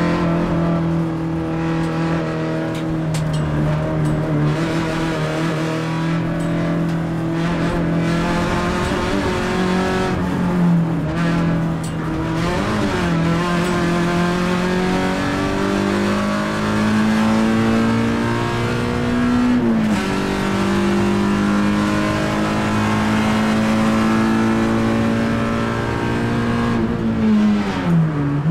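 Peugeot 106 Rally's four-cylinder petrol engine heard from inside the cabin, running at high revs on a track lap. Its pitch climbs and dips with throttle and gear changes: it drops suddenly about two-thirds of the way through, then falls away near the end as the car slows before picking up again.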